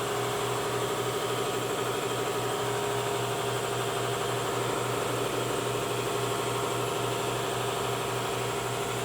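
Dynabrade DA (random orbital) sander running steadily with a 1500-grit Trizact pad, wet color sanding clear coat to level orange peel.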